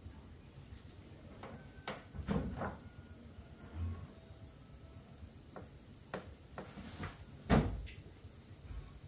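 A handful of scattered knocks and handling sounds, the loudest about seven and a half seconds in, over a steady high insect drone.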